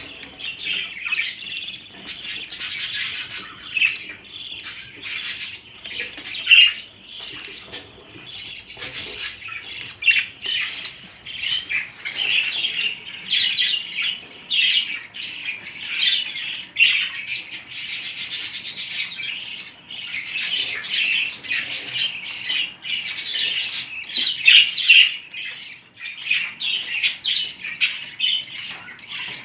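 Several budgerigars chattering and chirping without a break, a dense mix of warbles and squawks.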